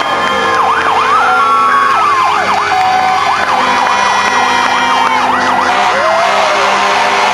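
Several fire engine sirens sounding at once, overlapping fast rising-and-falling yelps, with some steady held tones among them.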